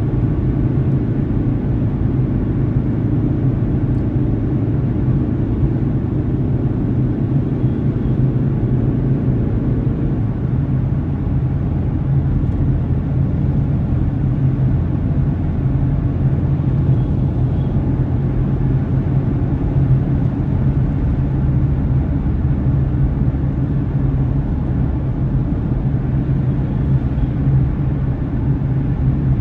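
Steady road and engine noise of a car driving, a continuous low rumble picked up by a dashcam inside the car. About ten seconds in, a faint humming tone stops and the low rumble shifts slightly.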